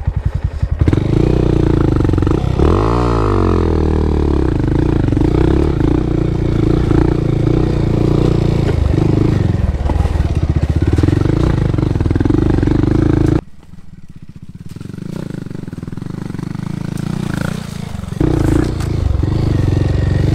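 A small single-cylinder four-stroke trail motorcycle engine running loud and close, its revs swelling and falling. It drops much quieter for a few seconds past the middle, then picks up again near the end.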